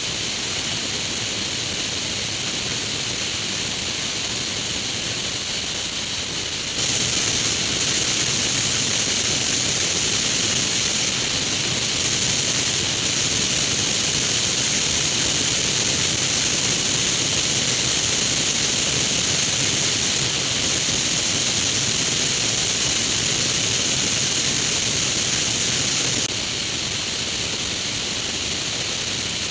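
Steady rush of air over a wing-mounted camera on a Grob G109 motorglider in flight, with a faint low engine hum underneath. The rush steps up in level about seven seconds in and drops back near the end.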